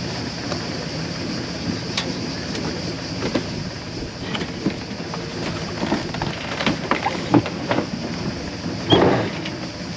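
A steady engine-like drone with a hiss over it. Scattered clicks and knocks start a few seconds in, and there is a louder thump near the end.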